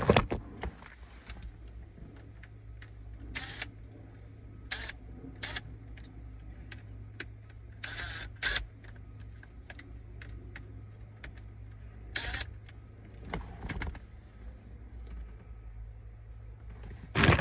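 Scattered light clicks and clatters of hand tools and a small plastic sunroof switch being worked, as a T15 Torx driver is tried on the switch's two small screws; the bit is too large for them. A steady low hum runs underneath.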